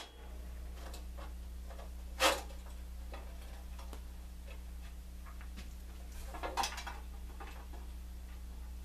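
Small metal clicks and knocks from hands working on a metal-cutting band saw: one sharp click about two seconds in, a few softer clicks later, and faint ticks between, over a steady low hum.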